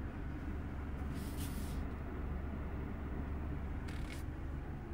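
2021 BMW 430i's 2.0-litre turbocharged four-cylinder engine running steadily: an even low rumble with no revving. There are two brief hisses, about a second in and about four seconds in.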